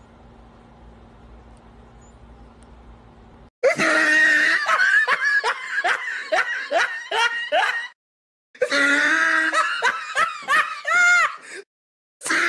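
Faint steady room hum, then about three and a half seconds in, loud high-pitched laughter in quick repeated yelps with rising pitch. It comes in two stretches, each cut off suddenly into dead silence.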